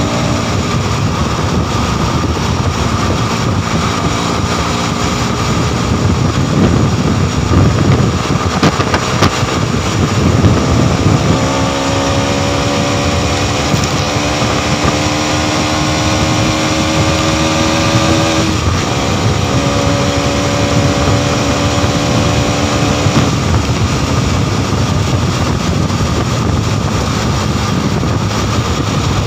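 Motorcycle engine running at road speed under heavy wind noise on the microphone. Partway through, the engine note stands out and slowly rises in pitch, breaks off briefly about two-thirds of the way through, then comes back steady.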